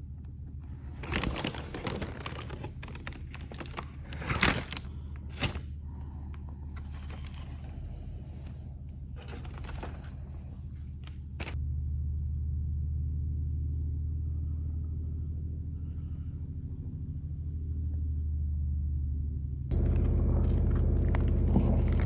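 Small clicks and crinkly handling noises, then a steady low rumble that starts about halfway through and gets louder near the end.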